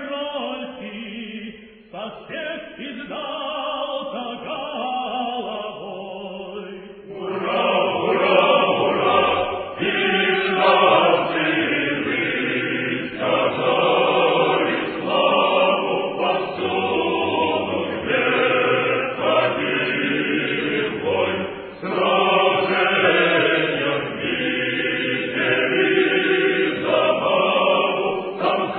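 Choir singing a Russian regimental song, quieter for the first few seconds and fuller from about a quarter of the way in.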